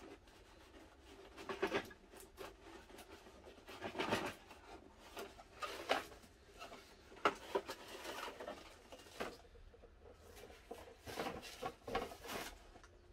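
Cardboard toy box being handled as its cardboard insert is worked and slid out: irregular scraping and rustling, with a few louder scrapes and knocks.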